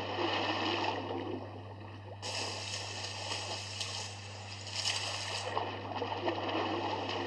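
Pool water splashing and churning as a swimmer swims hard down the lane, surging louder in stretches, over a steady low hum.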